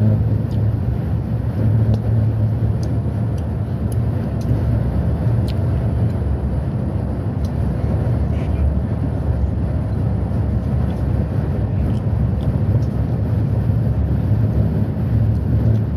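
Steady drone of a road vehicle cruising at motorway speed: a low engine hum under tyre and road noise, heard from inside the vehicle.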